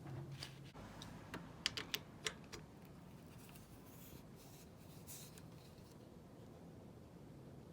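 Handling noises: a quick run of light, sharp clicks about a second and a half in, then faint rustling.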